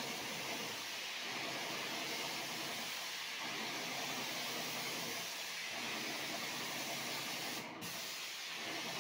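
Airless paint sprayer spraying paint, a steady loud hiss that breaks off briefly a little before the end.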